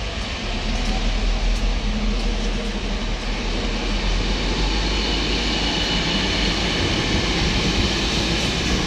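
Class 59 diesel freight locomotive passing close by, its two-stroke V16 engine running under load. A long train of loaded stone hopper wagons follows, their wheels rumbling and clattering steadily over the rails.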